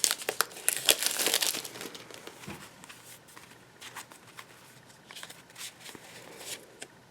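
Packaging crinkling and tearing as it is opened by hand, with a dense run of crackling in the first second and a half, then lighter, scattered rustles.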